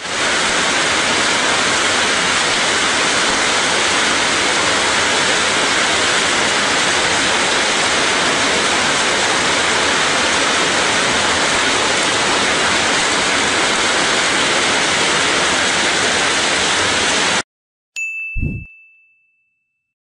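Torrential rain and hail pelting a corrugated roof as a loud, steady hiss that cuts off suddenly near the end. A short ding and a low thud follow.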